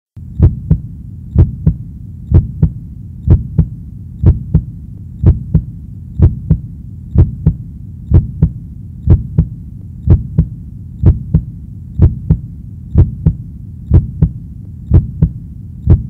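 Heartbeat sound: paired low lub-dub thumps repeating steadily about once a second, over a low steady hum.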